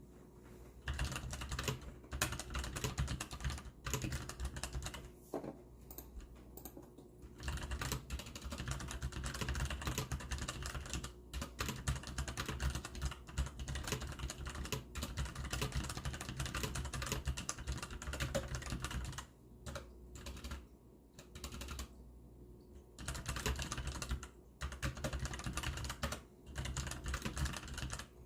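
Continuous typing on a Hansung GTune GK600 mechanical keyboard with brown switches: rapid runs of keystrokes, thinning to a few scattered strokes for a few seconds past the middle before fast typing resumes.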